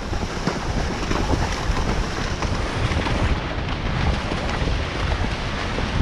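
Wind buffeting the microphone while riding at a canter, with surf washing in behind it.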